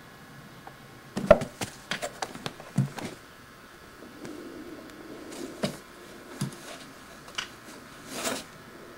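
Siamese cat scrambling at a painted play box, making irregular knocks and bumps against its walls: a quick cluster in the first few seconds, the loudest about a second in, then scattered single knocks and a short scratching scrape near the end.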